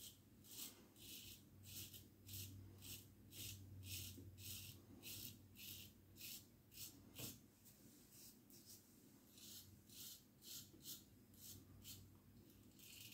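Faint, quick scraping strokes of a single-edge safety razor through lathered stubble, about two a second, the blade freshly honed by hand on stones.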